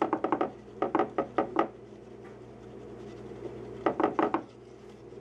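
A whisk knocking and scraping against a glass baking dish as it stirs coconut milk, in three short runs of quick taps: at the start, about a second in, and about four seconds in.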